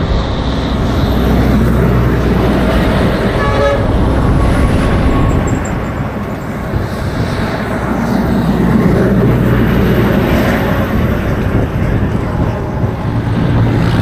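Gale-force wind buffeting the microphone over the rumble of road traffic, with a short horn toot about three and a half seconds in.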